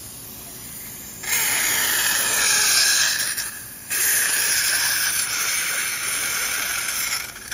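Surgical suction drawing fluid through a perforated suction tube in the incision: a steady hiss that starts about a second in, drops out briefly about halfway through, then resumes until near the end. The fluid being suctioned is from a large pericardial effusion.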